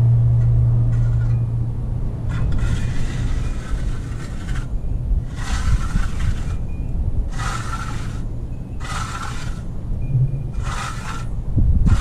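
Steel notched trowel, used on its smooth side, scraping across wet concrete to smooth it: five strokes, the first the longest, then shorter ones a second or two apart. A low rumble of wind on the microphone runs underneath.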